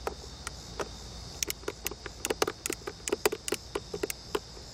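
Ratcheting strap lever on a clip-on towing mirror being worked to cinch the strap tight: a run of quick, sharp clicks, a few at first and then several a second through the second half.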